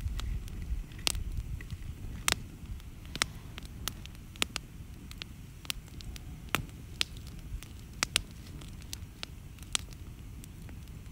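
Outdoor wood fire crackling, with sharp pops at irregular intervals over a low steady rumble.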